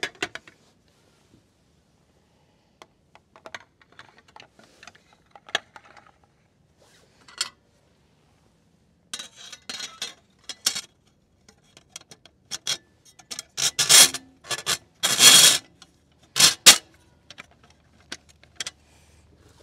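Glass canning jars with metal twist-off lids clinking and scraping against a metal autoclave cassette as they are set in place in rows. Scattered light clicks at first, then denser, louder clattering and scraping about halfway through.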